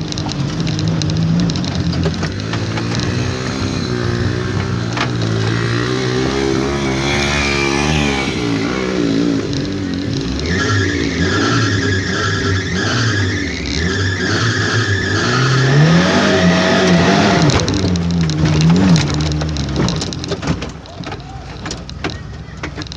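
Off-road 4x4's engine revving hard in the cab, the revs rising and falling again and again as it struggles up a steep muddy slope. It eases off near the end.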